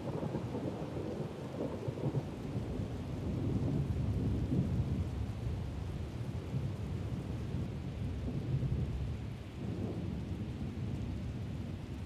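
Steady rain with rolling thunder rumbling low underneath, swelling and easing off several times.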